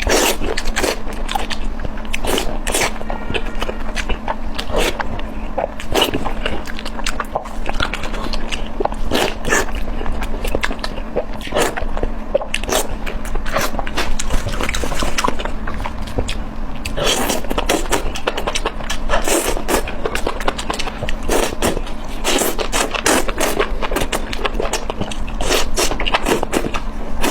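Close-miked eating sounds: chewing and mouth smacks, many irregular wet clicks in quick succession, over a steady low hum.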